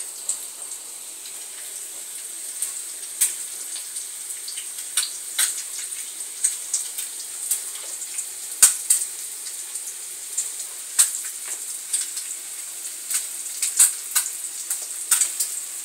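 Food frying in a pan: a steady sizzle with scattered crackles and pops.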